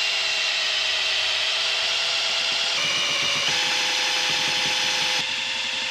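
Cordless drill spinning a paddle mixer in a can of paint primer. Its motor runs with a steady whine that shifts pitch a few times as the speed changes.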